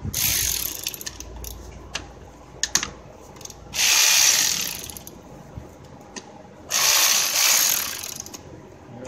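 Socket ratchet driving a 6 mm hex bit, giving three bursts of rapid ratcheting clicks about a second each, with a few single clicks between.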